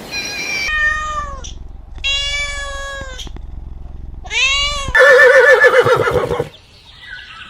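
Cat meowing three times, each meow high-pitched and falling at the end, then a louder, wavering drawn-out cry.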